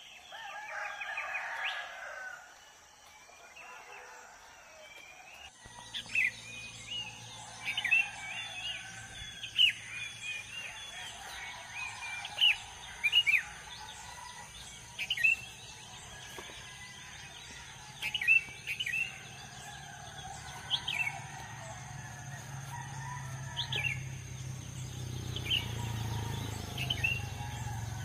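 A bird chirping in short, sharp calls every second or two, over a steady low hum.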